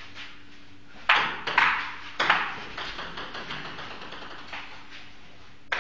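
Three loud, sharp clicks with a short ringing tail about a second in, followed by a few fainter, spaced-out ticks: hard pieces of game equipment striking each other.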